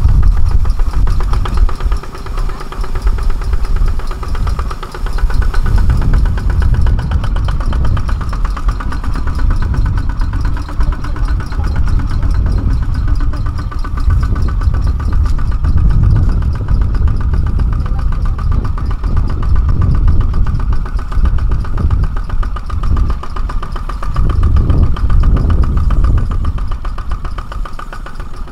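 Kubota ZT140 walking tractor's single-cylinder diesel engine running continuously under load as the tractor works through deep rice-paddy mud, its loudness rising and falling.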